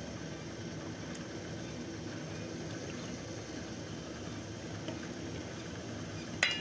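Boiling water hissing steadily in the base of a large open steamer pot. A single sharp metallic clink near the end.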